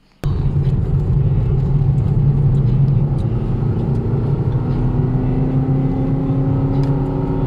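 Car engine and road noise heard from inside the cabin while driving, a steady low rumble whose engine note rises slowly in the second half. It cuts in abruptly a moment after the start.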